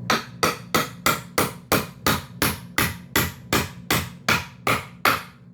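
About fifteen sharp, evenly spaced strikes, roughly three a second, stopping just before the end, over a steady low hum.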